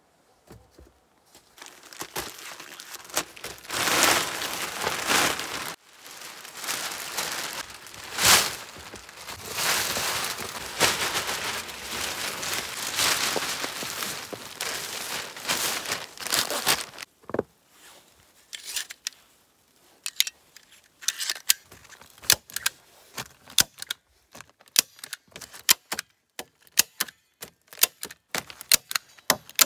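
Heavy black plastic sheeting crinkling and rustling as it is unfolded and pulled out over a log roof, then a hand staple gun driving staples through the sheet into the logs: a run of sharp clicks that come quicker towards the end.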